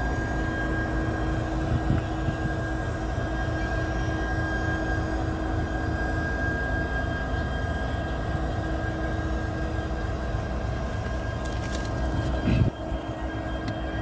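Canadian Pacific 7023, an EMD SD70ACU diesel-electric locomotive, idling: a steady low engine rumble with a thin, steady high whine over it. A brief sharp noise about twelve and a half seconds in.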